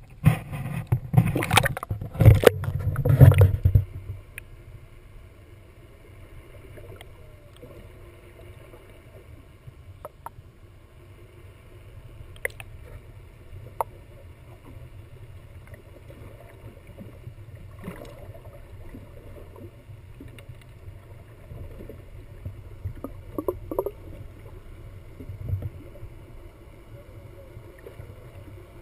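Water splashing against a camera held at the sea surface for the first four seconds, then a steady low underwater rumble with scattered faint clicks.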